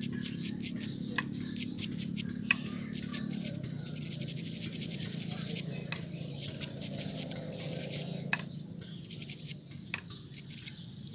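Kubota ER65 oil strainer being scrubbed clean in diesel fuel: quick scratchy strokes in irregular runs, densest about four seconds in.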